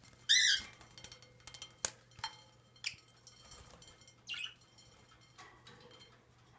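Budgerigars calling: a loud harsh squawk just after the start, then a few short sharp chirps and clicks over the next couple of seconds, and another brief call about four seconds in.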